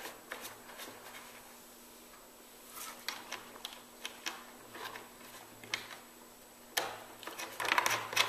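Light clicks and taps of small metal parts being handled, as knurled balls are screwed by hand onto the threaded studs of a lamp-shade bracket, with a quick flurry of clicks near the end.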